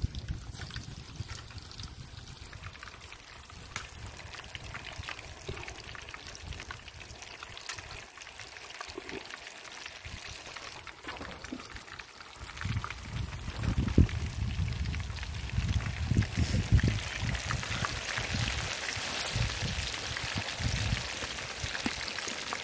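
Batter-coated chicken balls deep-frying in a kadai of hot oil: a steady sizzling hiss that gets louder through the second half. A low rumble with a few knocks sits under it in the middle and later part.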